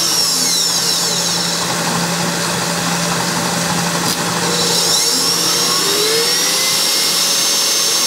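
KitchenAid Pro 600 stand mixer motor running steadily at speed during a loudness test, a loud whine over a constant low hum, with a faint sweeping shimmer in the high tones that comes and goes.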